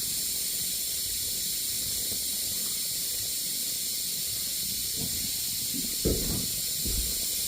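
Air hissing steadily out of an open radiator bleed valve while a central-heating radiator is being bled of trapped air, with a couple of faint low knocks about five and six seconds in.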